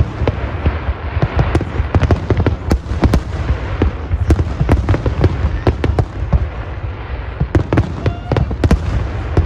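Fireworks going off in a dense barrage: many sharp bangs and crackles, several a second, over a continuous low rumble.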